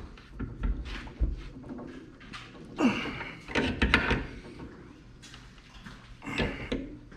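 Scattered knocks and clunks of metal parts being handled and slid into place during shop fabrication work.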